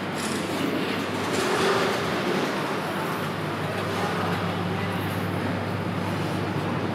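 Street traffic noise with a vehicle engine running steadily under it as a low hum.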